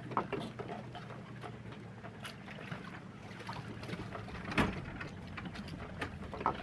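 Scattered knocks and clatters of gear being handled on a sailboat's stern, with one heavy thump about four and a half seconds in, over a low steady hum.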